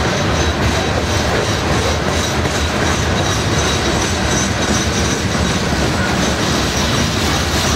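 Steel-wheeled covered hopper cars of a loaded freight grain train rolling past at speed: a steady, loud rumble and clatter of wheels on the rails.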